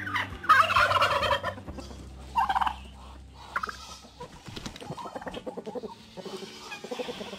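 Turkey gobbling loudly about half a second in, with a second shorter call around two and a half seconds. After that, a flock of chickens clucking quietly.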